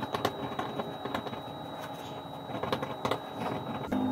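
Ballpoint pen writing on paper: a run of short, irregular scratchy strokes.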